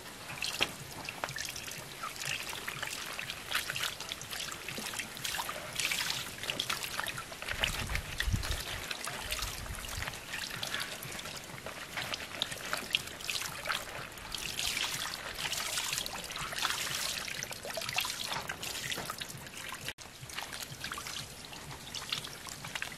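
Water splashing and dribbling in a plastic basin as large green leaves are washed and wiped with a cloth, with small irregular splashes and wet leaf handling sounds.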